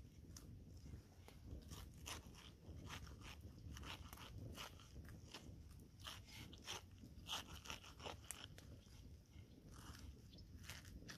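Small knife cutting and prying the juicy flesh out of a pineapple shell: an irregular run of faint, short crunches, a few a second.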